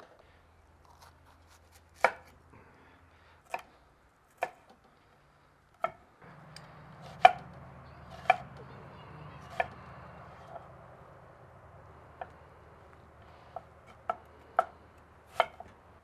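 A knife dicing an onion on a wooden cutting board: about a dozen separate knocks of the blade on the board, irregularly spaced. A faint low hum sits underneath from about six seconds in.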